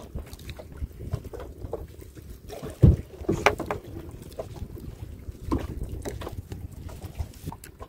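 Wind on the microphone with scattered knocks, the loudest a low thump about three seconds in.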